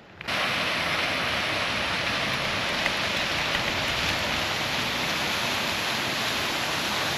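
Steady rushing of a waterfall cascading into a pool, cutting in abruptly just after the start.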